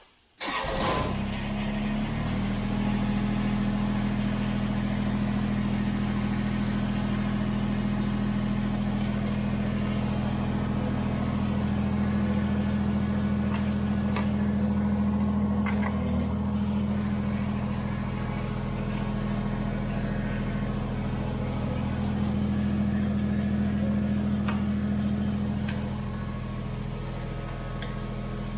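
Kubota BX23s tractor's three-cylinder diesel engine starting about half a second in, then running steadily at idle.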